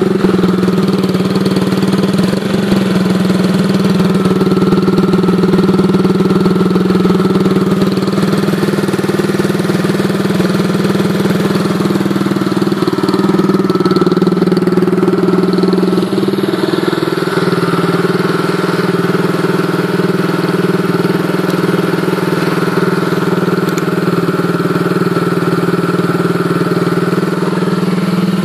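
Honda Dax motorcycle's Lifan 125cc single-cylinder four-stroke engine idling steadily through a Kepspeed aftermarket exhaust.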